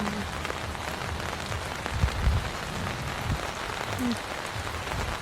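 Steady rain falling on a tent roof, with a few low thumps about two seconds in.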